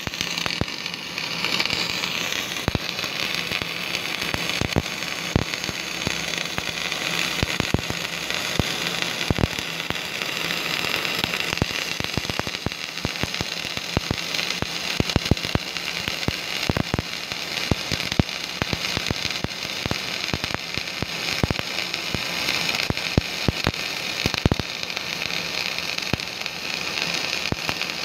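Wire-feed welding arc burning steadily: a continuous crackling sizzle broken by frequent sharp pops as spatter flies from the weld.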